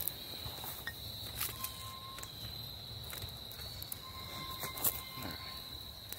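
Crickets chirring in one steady high note, with a few scattered clicks close by.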